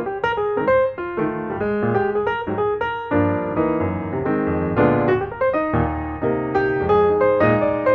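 Background piano music: a quick run of notes over chords, filling out with deeper chords about three seconds in.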